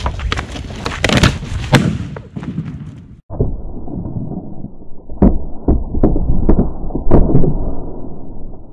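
Plastic bag crinkling as it is held over the mouth of a water bottle. Just after three seconds the sound cuts out, then comes a dull rumble with several sharp pops as a lump of sodium reacts with the water inside the bottle.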